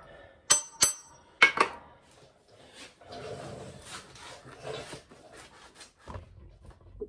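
Steel tools clinking on the engine block: a socket and breaker bar on the connecting-rod cap nuts of a 1928 Ford Model A engine give two sharp clinks with a brief metallic ring, then a heavier clank, followed by quieter scraping and handling of the tools.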